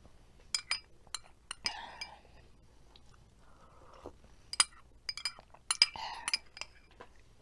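Metal spoon clinking and scraping against a small glass cup of potato soup, sharp ringing clinks in two clusters, about half a second in and again from about four and a half seconds. Soft slurps follow as the spoonfuls are sipped.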